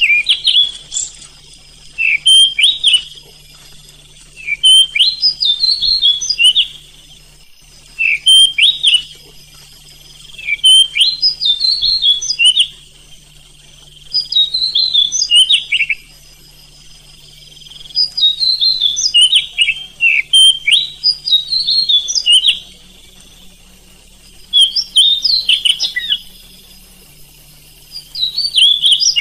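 Oriental magpie-robin (kacer) singing in bursts of rapid, quickly gliding whistled notes, each phrase a second or two long with short pauses between, about ten phrases in all. It is a masteran recording of a vigorously singing kacer, meant to rouse other magpie-robins into song.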